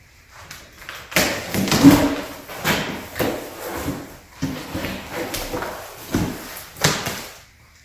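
Cardboard shipping box being opened and handled: a run of irregular knocks, scrapes and rustles of cardboard, about eight sharp bumps in all.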